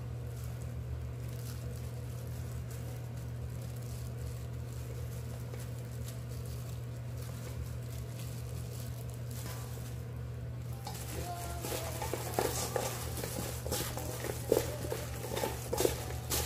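Gloved hands tossing green chili peppers in flour in a stainless steel bowl: soft rustling and patter with scattered clicks, growing busier about two-thirds of the way in, over a steady low hum.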